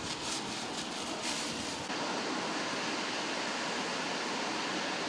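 Steady rain falling, an even hiss of water. About two seconds in it switches abruptly to closer, slightly louder rain splashing on wet ground.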